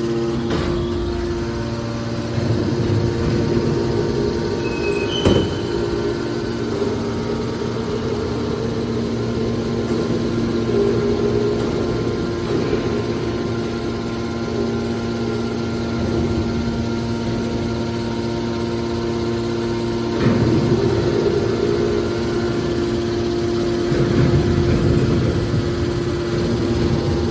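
Hydraulic scrap-metal baler running: a steady hum from its hydraulic power unit, with a sharp metal clang about five seconds in and louder rough stretches around twenty and twenty-five seconds in.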